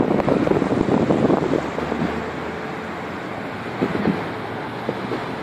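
Sandstorm wind buffeting a phone's microphone, gusting hard for the first couple of seconds and then easing to a steadier rush, with one more brief gust near the end.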